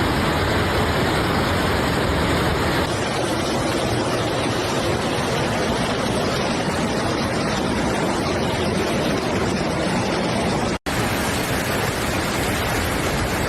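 Steady rushing roar of floodwater, loud and even, with a sudden change in tone about three seconds in and a brief dropout near eleven seconds, where the footage is cut.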